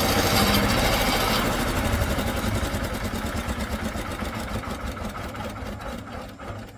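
Engine of a rice threshing machine running, then winding down: its beat slows and becomes more distinct as it fades toward a stop near the end.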